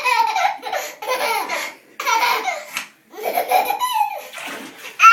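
A toddler laughing in a string of short, high-pitched bursts about a second apart, in a bathtub.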